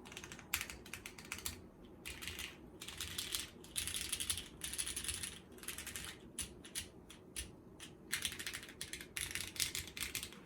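Typing on a Geon Works F1-8X mechanical keyboard with an aluminium plate, lubed vintage Cherry MX Black switches and GMK keycaps. The keystrokes come in quick runs broken by short pauses.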